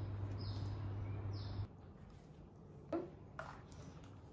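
Quiet room tone with a low steady hum and a few faint high chirps, about one a second. The hum cuts off abruptly about a second and a half in, leaving quieter room tone with a couple of faint brief sounds.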